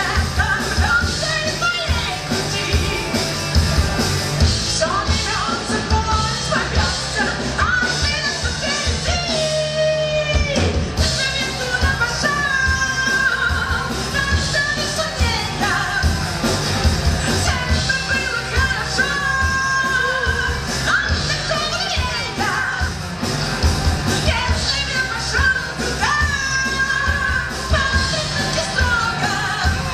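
Live rock band playing: a woman singing over electric guitars, bass and drums. The bass and drums drop out briefly about ten seconds in.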